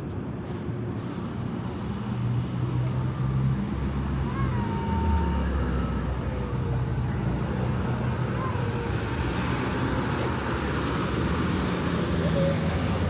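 Street traffic: motor vehicle engines rumbling past, with a low rumble that grows louder about two seconds in.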